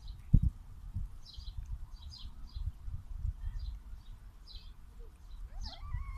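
Small birds chirping in the background, short high chirps every half second or so, over a low rumble on the microphone with a loud thump about half a second in. A cat gives a short meow near the end.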